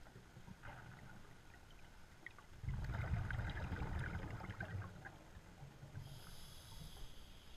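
Scuba diver breathing through a regulator underwater. A burst of exhaled bubbles rumbles and crackles for about two seconds from a few seconds in, and near the end comes the hissing, whistling inhale through the regulator.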